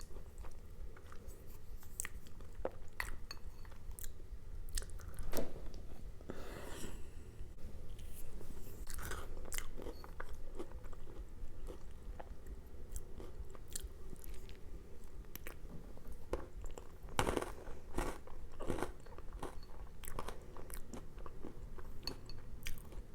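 Close-miked chewing and crunching of chocolate pudding mixed with pretzels and peanuts, in short irregular crunches and mouth clicks, one of the loudest about two-thirds of the way through.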